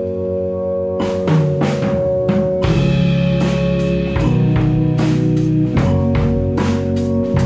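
A live rock band playing: held chords ring on, a drum kit comes in about a second in with regular hits, and the low end fills out near three seconds in as the electric guitars and the rest of the band join.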